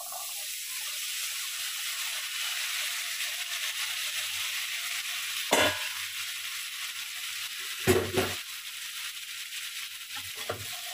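Diced potatoes sizzling in butter and a little oil in a hot frying pan, a steady frying hiss. Two sharp knocks, one about halfway through and a stronger one a couple of seconds later.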